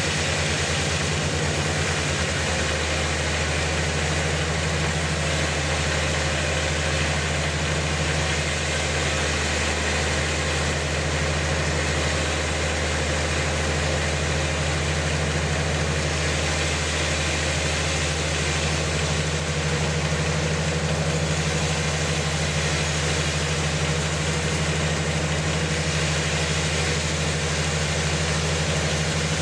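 Sawmill machinery running steadily with a constant low hum, unchanged throughout.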